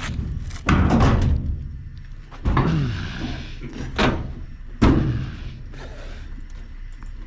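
Washing machine being heaved and rolled into a vehicle for scrap: several heavy metal bangs and thuds, with scraping between them.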